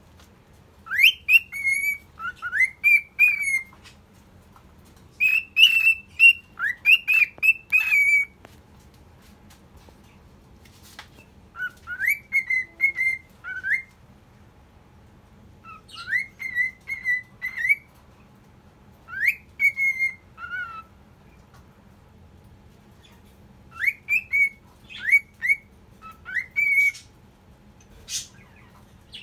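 Cockatiel whistling its song: short whistled notes, many rising sharply, strung into phrases of two to three seconds with pauses of a few seconds between.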